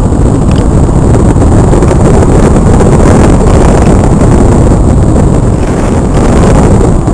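Loud, steady wind rush buffeting the onboard camera's microphone on a Multiplex Cularis RC glider in flight, with no clear motor tone.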